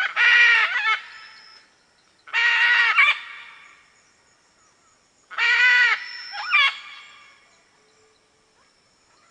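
Red macaw giving three loud squawks, each about a second long and a couple of seconds apart, the last trailing into a short second note.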